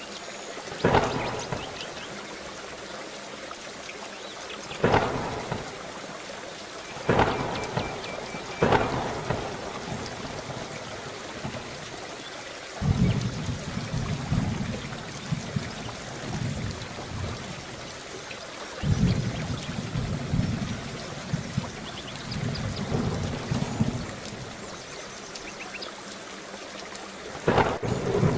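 Steady heavy rain with thunder: several sharp cracks, about a second in, then near 5, 7 and 9 seconds and again near the end, and two long low rolls of rumbling in between.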